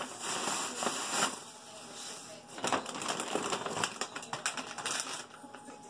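Tissue paper crinkling and rustling as it is pulled out of a paper gift bag, with several sharper crackles.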